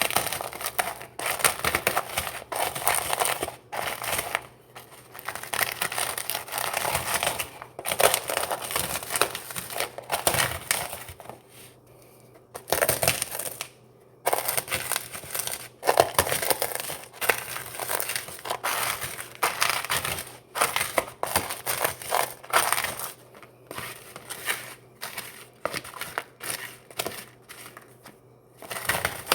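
Crunchy Cheetos being crushed into crumbs: dense, irregular crunching and crackling in spurts, with short pauses about twelve and fourteen seconds in.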